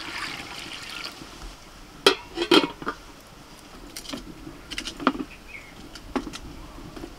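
Water poured from an aluminium bowl into an aluminium kadai on a clay wood-fired stove, followed by sharp metallic clanks as the lid and pots are handled, the loudest pair about two seconds in. A few smaller knocks come later as split firewood is pushed into the stove.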